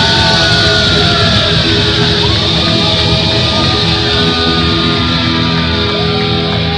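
Heavy metal band playing live and loud: electric guitar, bass guitar and drums.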